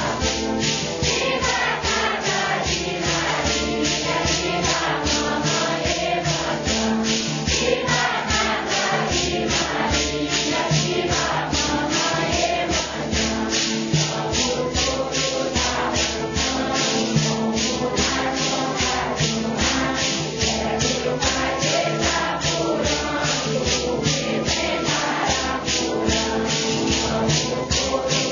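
Group of voices singing a hymn together over a steady shaken-rattle beat, most likely maracas, at about two to three strokes a second.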